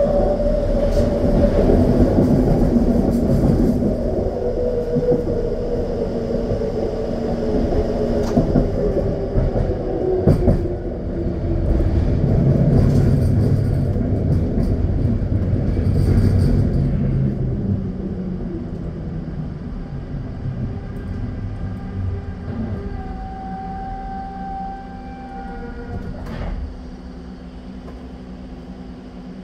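SkyTrain car running on the guideway: its linear-induction-motor whine falls steadily in pitch over a rumble of wheels on rail as the train slows, with a few sharp clunks from the track. The sound fades away over the last several seconds as the train comes nearly to a stop.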